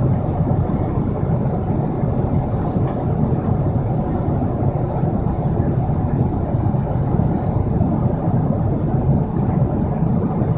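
Steady cabin noise of a Boeing 777-300ER airliner in flight: an even, low rumble of engines and airflow.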